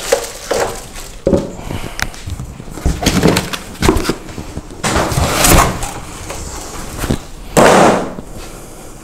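White foam packing inserts being pulled out of a large cardboard box: a string of irregular knocks, scrapes and rustles of foam and cardboard, the loudest about five and eight seconds in.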